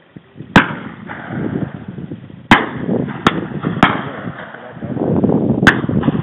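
Five shotgun shots from the guns on a driven pheasant shoot, spaced unevenly over a few seconds, the second pair fainter and closer together, over a rough steady noise.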